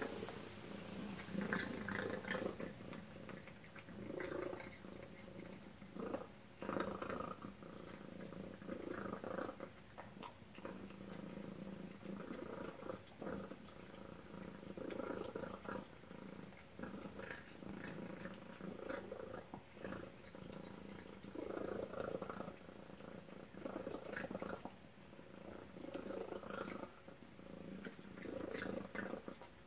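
Tabby cat eating shredded wet chicken-and-duck cat food from a stainless steel bowl: wet chewing and smacking in repeated bouts every second or two, with small clicks.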